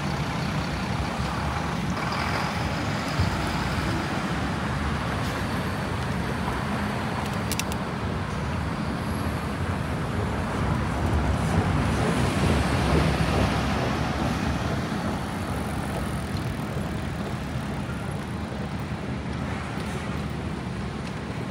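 City street traffic noise, a continuous wash of passing vehicles that swells louder for a few seconds midway.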